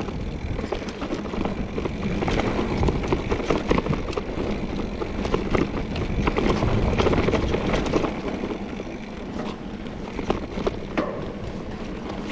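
Trek Fuel EX 5 full-suspension mountain bike ridden over rough dirt trail: knobby tyres rumbling and crunching over dirt and rock, with many sharp clicks and rattles from the chain and frame. Louder through the middle stretch, easing a little near the end.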